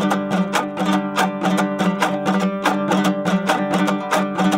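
Instrumental music: a plucked string instrument playing a quick run of evenly paced notes over a low steady drone.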